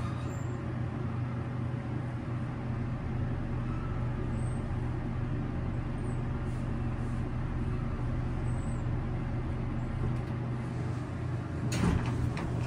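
Montgomery hydraulic elevator car in motion, heard from inside the cab: a steady low hum, then a few clicks and a knock near the end as the car arrives at the landing.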